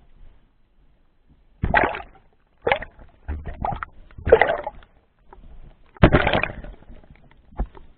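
A dog splashing in pond water, in short irregular bursts of sloshing, the loudest about six seconds in.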